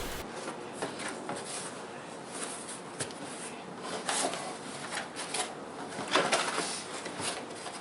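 Cardboard box and packaging being handled as it is opened: irregular scrapes, rustles and light knocks, a few louder ones about three, four and six seconds in.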